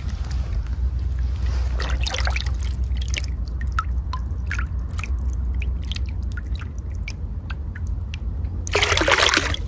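Small fish flicking and splashing in a plastic basin of water, with drips and trickles as water runs off. There is a louder burst of splashing about nine seconds in.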